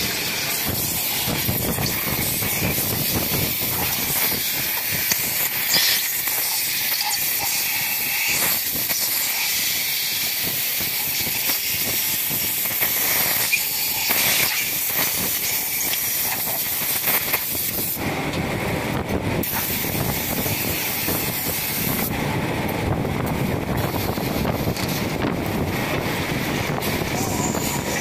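EVA sole moulding press and workshop machinery running, with a steady hiss over a rumble. About two-thirds through, the hiss drops away for a few seconds and the rumble comes up, then the hiss returns.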